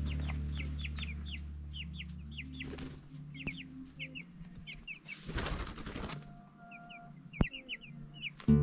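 Young chickens peeping, a steady run of short, high chirps, while background guitar music fades out over the first few seconds. A brief rustle comes about five seconds in.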